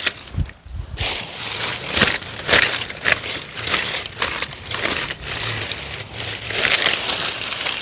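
Dry plant stalks and fallen leaves rustling and crackling as they are pulled and handled by hand, in quick irregular crackles.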